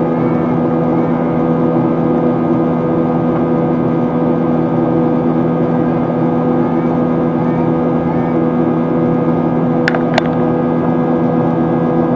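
Steady cabin drone of a Boeing 737-800's CFM56 turbofan engines after takeoff, a constant rushing noise with several steady hum tones. Two short clicks about ten seconds in.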